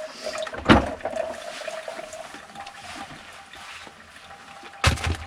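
Two sharp knocks, one under a second in and one near the end, over a faint steady hum.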